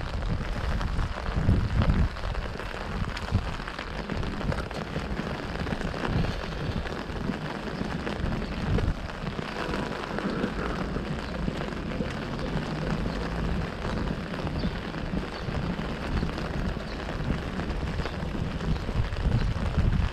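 Rain pattering on an open umbrella held close over the microphone, an even, dense hiss with a low rumble underneath.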